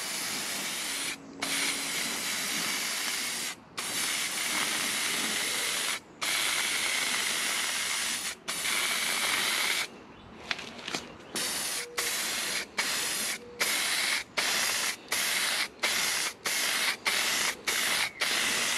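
Aerosol can of clear coat spraying: long hissing sprays of two to three seconds each with short breaks, then, about ten seconds in, rapid short blasts about two a second.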